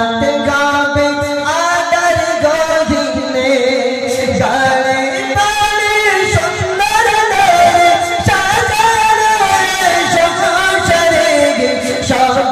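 A man singing a Bengali Islamic gojol through a handheld microphone, with long held, ornamented notes that bend up and down.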